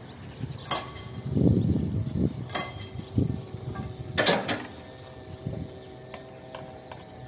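Railway level-crossing barriers lowering: the boom mechanism clanks sharply three times, the loudest about four seconds in as the booms come down, followed by faint steady tones.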